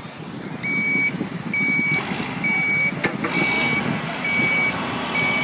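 A heavy truck's reversing alarm beeping steadily, about one beep a second, over its engine running. A single sharp click is heard about three seconds in.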